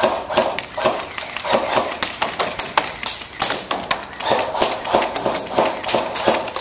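Airsoft guns firing: a rapid, irregular clatter of sharp shots, several a second, that starts suddenly.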